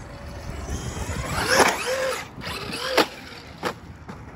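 Traxxas Maxx RC monster truck driven hard. Its electric motor whines, rising and falling with the throttle, over tire noise, with two loud sharp hits about a second and a half apart.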